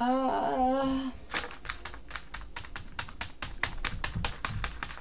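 A short hummed vocal sound, then rapid typing on a computer keyboard, about seven keystrokes a second, starting about a second in.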